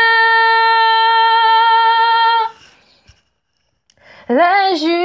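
A woman singing solo a cappella: one long steady note with a slight vibrato, held for about two and a half seconds. After a short pause, she starts singing again near the end.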